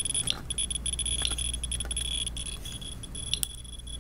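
A scintillation counter's audible count indicator chirping rapidly as it counts gamma radiation, its counts running together into a broken, high-pitched electronic tone, with a few sharper clicks.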